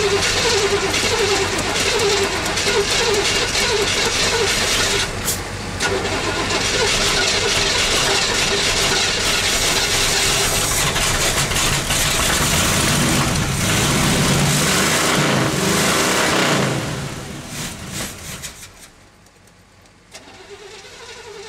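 Starter cranking the cold Chevy 350 V8 on a newly changed battery, with a steady pulsing rhythm, after the truck has sat for about eight months. The cranking stops about 17 seconds in, and a second, quieter crank begins near the end.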